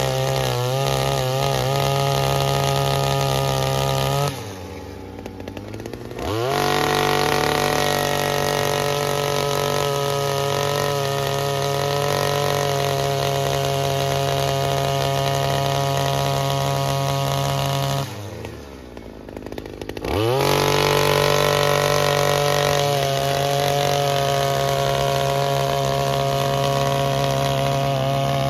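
62cc petrol earth auger engine running at high revs as the bit bores into soil, its pitch wavering under the load. Twice, about four seconds in and again about eighteen seconds in, it drops to a lower, quieter idle for about two seconds, then revs back up.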